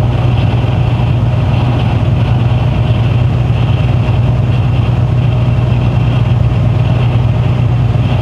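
Mercedes-Benz Actros truck cruising on the motorway, heard inside the cab: a steady low engine drone with even tyre and road hiss on a smooth road surface.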